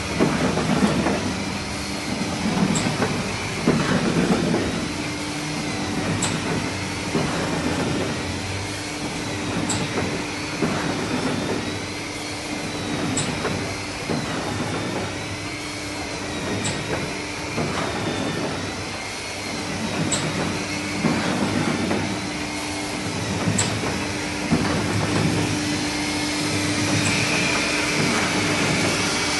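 Albert cylinder die cutter running, a steady rhythmic mechanical clatter with a faint hum and a sharp tick repeating about every three and a half seconds.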